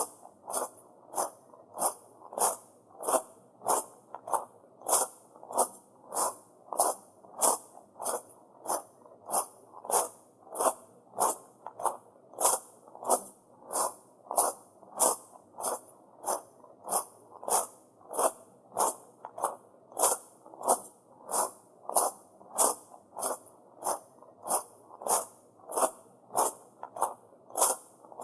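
Footsteps crunching on loose shrine pebbles (tamajari gravel) at a steady walking pace, about three steps every two seconds.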